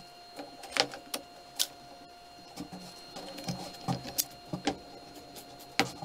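One-handed bar clamps being put on and tightened over a glued-up pine panel: scattered sharp clicks and knocks from the clamps' trigger ratchets and bars on the wood, over a faint steady hum.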